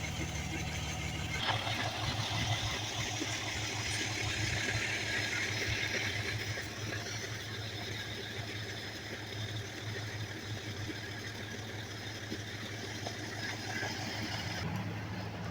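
Motor vehicle engine idling, a steady low hum, with a wider hiss joining about a second and a half in.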